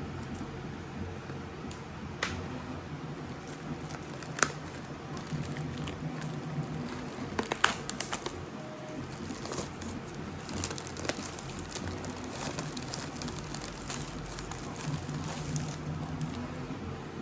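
Packaging being handled by hand: plastic crinkling and crackling with scattered sharp clicks and taps, busiest about halfway through, over a steady background hiss.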